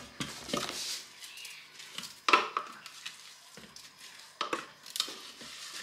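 Spatula scraping around a plastic food processor bowl and knocking against it as chopped vegetables are tipped out into a pot, with several sharp knocks, the loudest a little over two seconds in.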